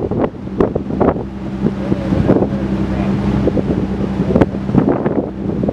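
Engine of a varnished wooden motor launch running steadily under way, a constant low drone, with wind buffeting the microphone and a few short knocks.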